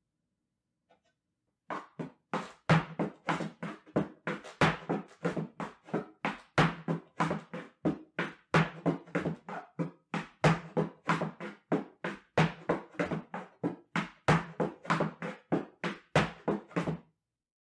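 Folklorico zapateado footwork: heeled dance boots striking a wooden platform in a steady run of sharp taps and stamps, about three to four a second, starting about two seconds in.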